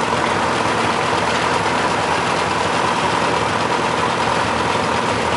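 Small tractor engines running steadily at low speed, an even mechanical hum with a constant high whine over it.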